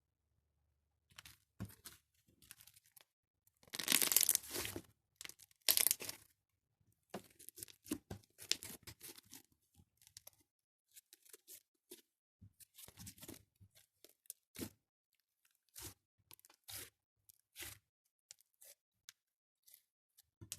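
Slime being stretched and squished, giving irregular crackling and tearing sounds, loudest about four and six seconds in.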